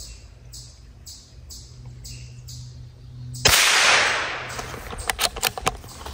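A single sharp crack about halfway through, followed by about a second of loud rustling that fades, then a few quick sharp snaps. Before the crack, high pulses repeat about twice a second over a low hum, and both stop at the crack.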